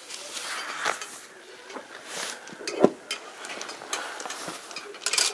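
Rusty iron safety chain clinking and rattling against the rock as a gloved hand grips and pulls on it, mixed with scuffs and rustling of the climber moving on the granite. A sharper, louder clack comes about three seconds in.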